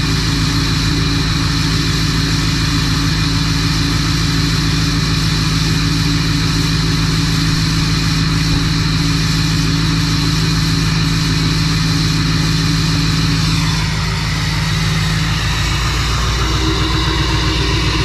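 Duramax diesel pickup engine idling steadily just after a hard start in extreme cold, left running to warm up. Its low note shifts and the level dips slightly about fourteen seconds in.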